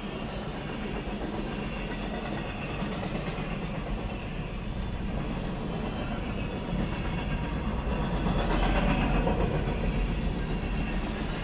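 CSX freight train cars rolling past with a steady rumble of steel wheels on rail. A run of sharp clicks comes in the first half, and the sound swells louder about eight seconds in.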